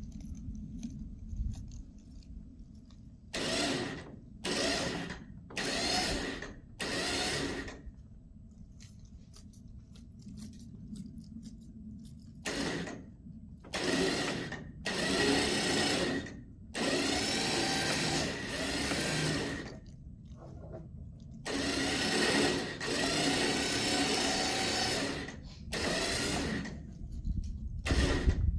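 Electric winch motor running in short start-stop bursts, some brief and some several seconds long, as it pulls a load off a trailer through a snatch block.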